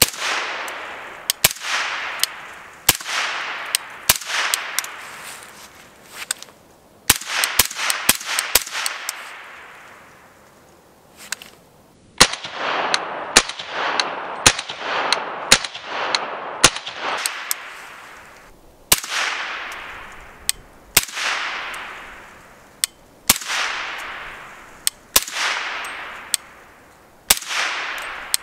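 Semi-automatic 300 Blackout AR-style rifle (Noveske N4) firing 150-grain Fiocchi supersonic rounds through a Q Trash Panda titanium suppressor. About two dozen sharp shots, some single and some in quick strings, each followed by about a second of echo off the surrounding valley walls.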